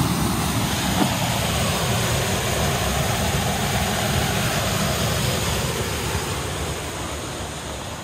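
Steady rush of river whitewater pouring from under a stone arch, growing quieter over the last two seconds.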